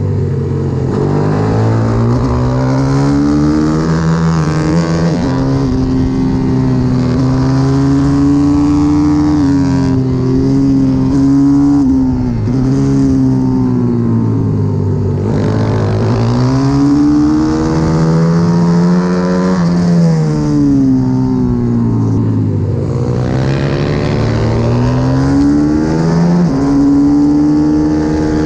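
A 140cc single-cylinder four-stroke pit bike engine heard onboard at racing speed, its note climbing as it accelerates and falling as it slows into corners, again and again.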